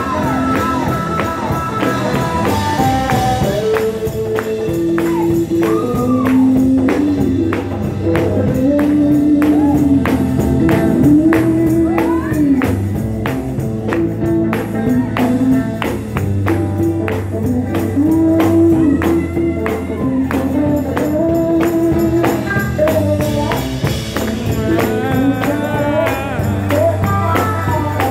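Live sacred-steel gospel band playing an up-tempo number: the steel guitar carries a sliding, bending melody over electric guitar, bass guitar and a driving drum beat.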